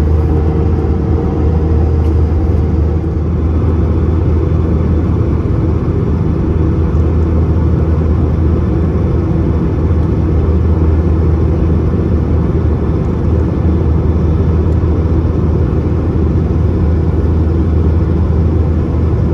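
Airbus A321-231 with IAE V2500 turbofans heard from inside the cabin after takeoff: a loud, steady, deep rumble of engine and airflow noise. A faint steady hum fades out about three seconds in.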